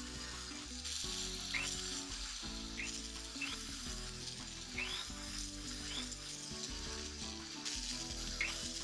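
Rotary tool's abrasive disc grinding a 9ct gold signet ring: a steady hiss that starts about a second in and stops near the end.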